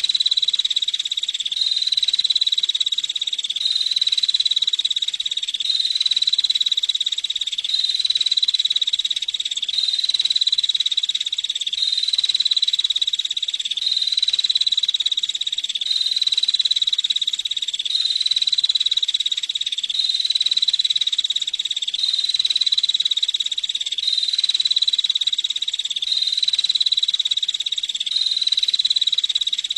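Female prinia (prenjak) giving a continuous, high, buzzy rattling trill that repeats in near-identical cycles about every two seconds.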